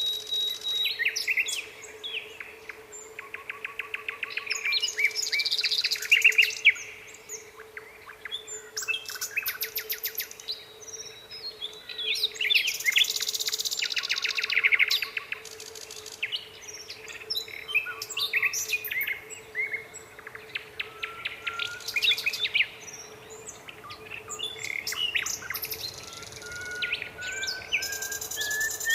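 Nightingale singing: separate phrases of rapid clicking trills, repeated notes and whistles with short pauses between them, ending in a slow rising whistle near the end. A faint steady hum runs underneath.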